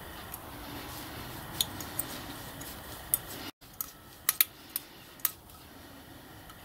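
Metal parts of a small gas burner for a 5-inch gauge steam locomotive clicking and clinking as they are handled and fitted together by hand: a scattering of light, sharp clicks, bunched about halfway through.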